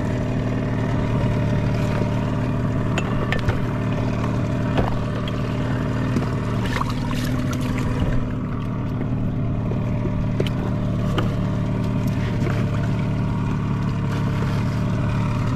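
Hidea 15 hp outboard motor idling steadily on an inflatable boat, with a few light clicks over it.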